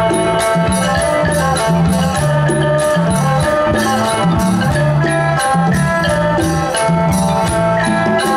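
Isan pong lang folk ensemble playing an instrumental passage: melodic lines over a steady bass line, with a quick, even beat of high percussion.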